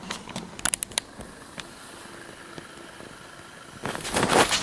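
Camera handling noise: a few light clicks in the first second or so, then a louder burst of rustling near the end as the camera is moved against clothing.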